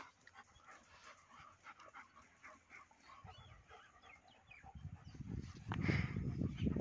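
Young German shepherd dogs whining and yipping faintly in many short, high calls. About five seconds in, a louder low rumbling noise comes in.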